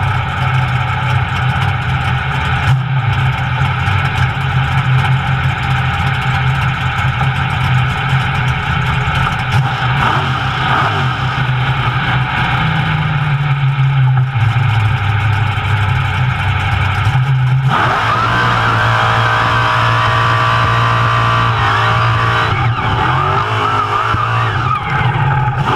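A 1200-horsepower mega mud truck's engine running hard at high throttle, heard from inside its roll-caged cab. The engine note shifts in pitch a few times, and a higher whine joins it about two thirds of the way in.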